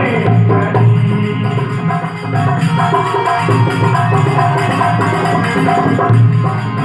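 Instrumental music of a Rajasthani folk bhajan: a steady beat on hand percussion under a melodic instrument holding sustained notes, with no singing.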